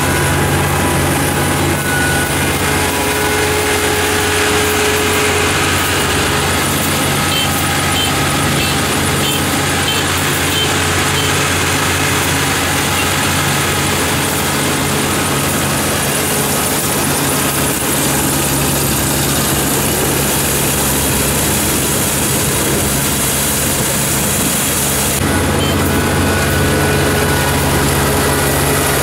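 Kubota ER447 combine harvester running steadily while harvesting rice: a constant engine hum under a dense mechanical hiss. About 25 seconds in the high hiss drops back and the low engine hum comes forward.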